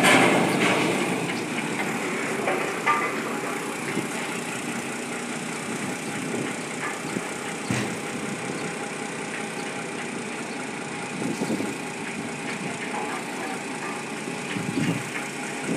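UniCarriers forklift engines running steadily under load while moving a heavy steel panel, with a sharp knock a little under eight seconds in.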